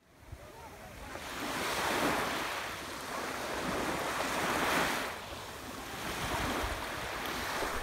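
Small waves breaking and washing up a sandy beach: the surf fades in at the start and swells twice, about two seconds in and again near five seconds.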